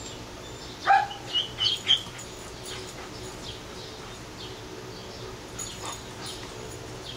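German shepherds giving a few short, sharp barks and yips about a second into the clip, with fainter yips later.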